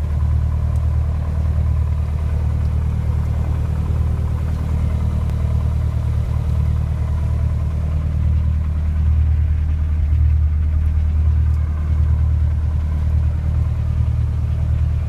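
Helicopter engine and rotor running, heard from inside the cabin as a steady low drone.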